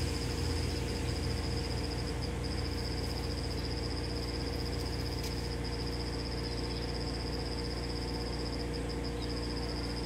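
A steady high-pitched insect trill, broken by a few short gaps, over a low steady hum.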